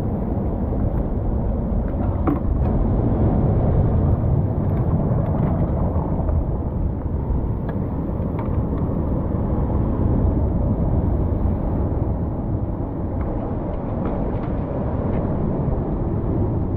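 Ocean surf washing in over shoreline rocks and sand: a steady low rush of water that swells and eases with the waves.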